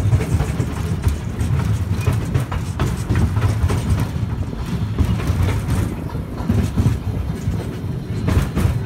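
Open-sided tourist train carriage rumbling along while moving, a steady low drone with scattered light rattles and clicks.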